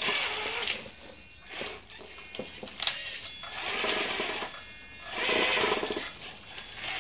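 Electric motor and geared drivetrain of a 1/10 scale radio-controlled 4x4 whirring in about five short bursts of throttle, its pitch rising and falling with each burst. With the differentials unlocked and open, the drive goes to the wheel that is easiest to turn, which spins freely.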